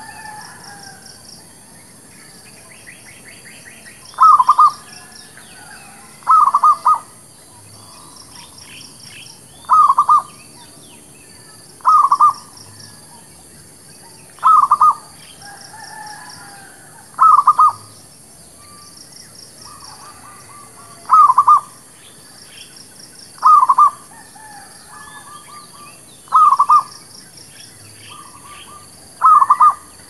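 Zebra dove cooing: a short, quick run of notes, repeated about every two to three seconds, with small birds chirping faintly behind.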